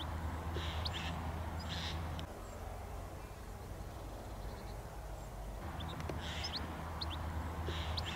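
Birds calling outdoors: short high calls and chirps in a few clusters, at the start and again over the last couple of seconds, quieter in between, over a steady low hum.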